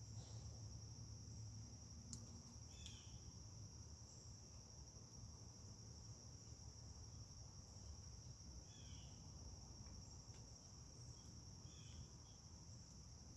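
Faint, steady high-pitched chorus of crickets, with four or five short chirps from another small creature scattered through it and a low steady rumble beneath.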